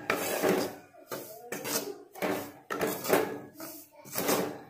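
Flat metal spatula scraping and stirring finger millet (ragi) flour around a metal kadai in repeated strokes, roughly one every half second, as the flour is roasted in ghee until light golden brown.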